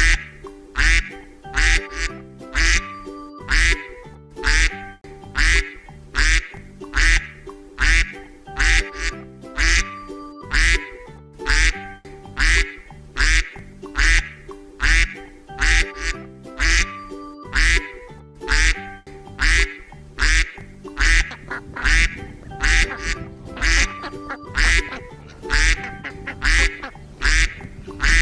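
Duck quacking over and over in a steady rhythm, over background music with a low beat.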